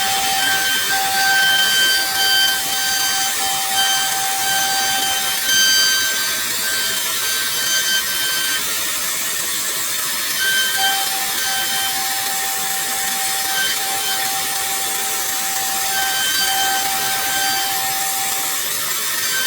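CNC router spindle running with a steady high whine while its bit cuts wood, over a hiss of cutting. The lowest note of the whine drops away for a few seconds in the middle and then returns.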